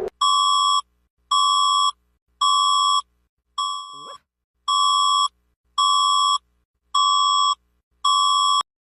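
Electronic emergency alert tone: eight steady beeps near 1 kHz, each about half a second long, repeating about once a second. The fourth beep is quieter and broken by a short rising sweep.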